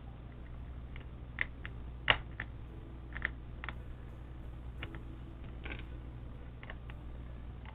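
Scattered light clicks and taps, about a dozen at uneven spacing, as mechanical keyboard switches are worked loose from a tight aluminium plate, over a low steady hum.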